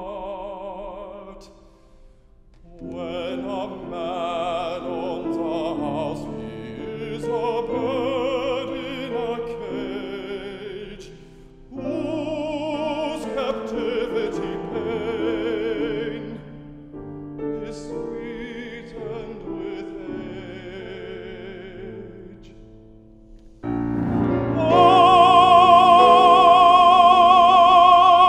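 Operatic baritone singing an aria with wide vibrato over grand piano accompaniment. Near the end he rises to a loud, long-held high note.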